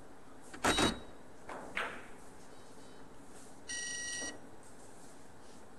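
A loud clack of billiard balls about half a second in, a softer knock about a second later, then a steady electronic beep lasting about half a second near four seconds in, as the match's electronic scoreboard is updated.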